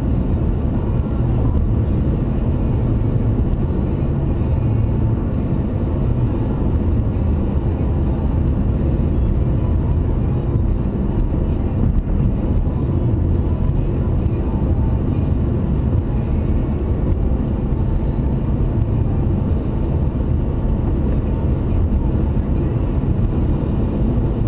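Steady road and engine noise of a moving car, heard inside the cabin through a dash cam's microphone.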